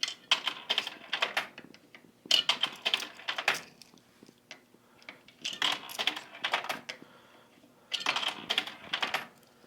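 Coins fed into a vending machine, rattling and clicking through the coin slot in four short bursts, each about a second long.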